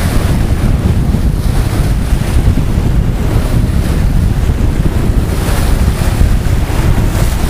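Wind buffeting the microphone with a continuous low rumble, over the rushing and splashing of a sailboat's bow wave as the hull cuts through the water.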